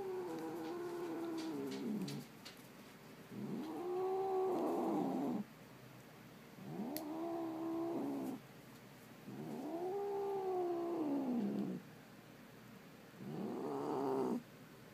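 Calico cat giving long, low warning yowls at dogs: a run of drawn-out calls of a second or two each, every one rising then falling in pitch, with short pauses between them.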